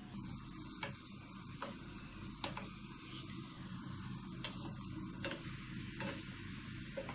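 Bread gulab jamun balls sizzling as they deep-fry in hot oil, with a wooden spatula clicking against the pan now and then as they are stirred.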